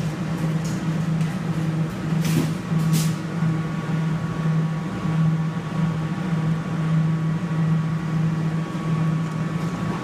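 Low steady machine hum from the claw machine, swelling and fading slightly, with two short hisses about two to three seconds in.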